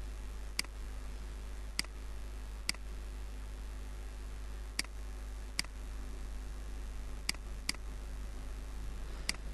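Computer mouse button clicking, about eight sharp single clicks at uneven intervals, over a steady low hum.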